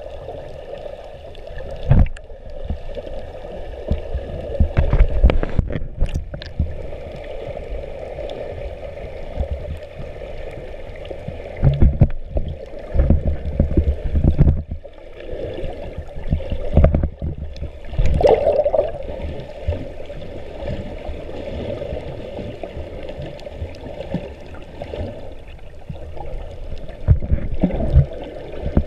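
Muffled water sloshing and gurgling heard through a GoPro's waterproof housing underwater, with several low thumps and bubbly bursts as the camera moves through the water.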